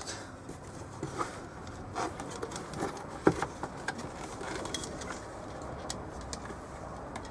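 Scattered light clicks and taps from handling a circuit board and multimeter probes, with one sharper click about three seconds in.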